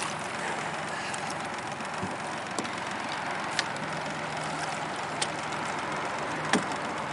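Steady rushing background noise over a faint low hum, with a few sharp clicks scattered through it.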